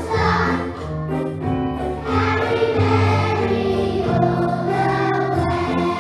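A group of young children singing a nativity song together, with an instrumental backing of held bass and accompanying notes.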